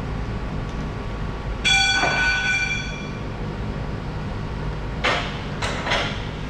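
Chevalier FSG-618 surface grinder running with a steady low hum. About two seconds in a metal part is struck and rings out for over a second, and near the end there are three short knocks or scrapes.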